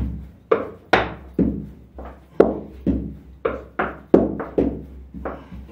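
Dough being worked on a bakery board: about a dozen sharp thunks, roughly two a second and unevenly spaced.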